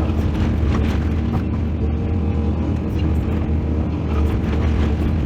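Mining excavator's diesel engine running steadily under load, with a few brief knocks on top.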